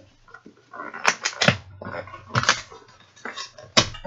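Packing tape being peeled off a cardboard shipping box in several short rips, with the cardboard rustling under the hands.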